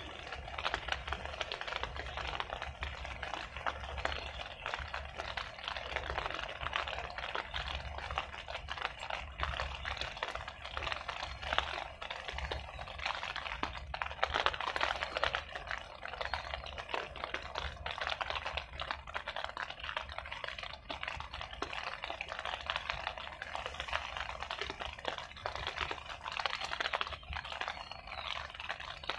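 Steady, dense patter of water, many small splashes and drips at once, with a low wind rumble on the microphone.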